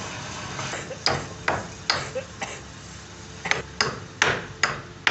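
Hammer blows: a run of three sharp knocks, a pause, then four more, each ringing briefly.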